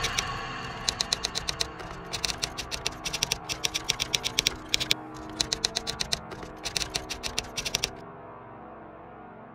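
Typing sound effect: quick runs of sharp key clicks in short bursts, stopping about eight seconds in, over quiet dark ambient music.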